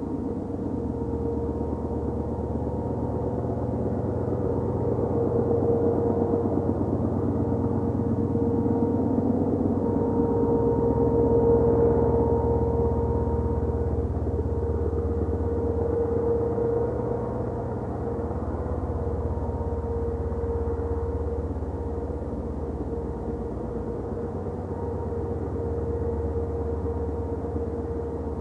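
Two DF4B diesel-electric locomotives working hard uphill with a freight train, heard from afar. A steady low engine drone carries a constant hum over it, swelling a little toward the middle and easing in the second half.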